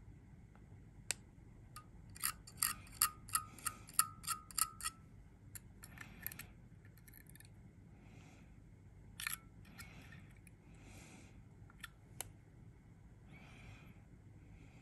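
Quiet, light clicks from working on a rebuildable atomizer's dual coils on a vape mod while the coils are dry-fired and pinched with tweezers. About two seconds in comes a quick run of about ten clicks, roughly four a second, each with a faint ring. Scattered single clicks and a few soft hisses follow.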